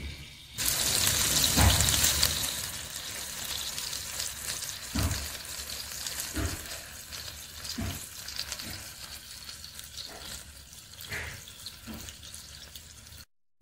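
Marinated chicken thighs frying in hot fat in a cast-iron pot: a sizzle that starts suddenly about half a second in and slowly dies down, with a few soft knocks against the pot. The sound cuts off suddenly near the end.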